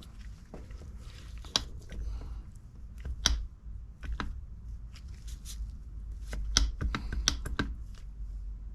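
Parts of a disassembled hydraulic pump being handled on a workbench: irregular clicks and small knocks, a dozen or so, two of them louder, over a steady low hum.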